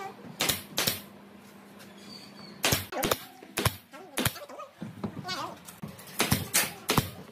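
Pneumatic brad nailer firing nails through a thin panel into a pine frame: about ten sharp shots at irregular intervals as it is moved along the panel, several in quick succession near the end.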